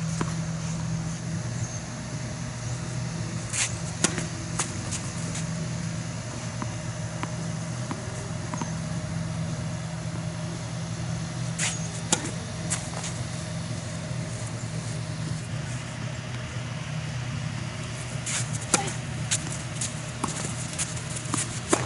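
Tennis rally: sharp pops of a racket hitting the ball and the ball bouncing, some in pairs about half a second apart and several seconds between groups, over a steady low hum.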